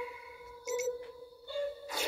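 Opening of a drill rap music video playing through a laptop's speakers: sustained tones, with short louder accents about two-thirds of a second and a second and a half in.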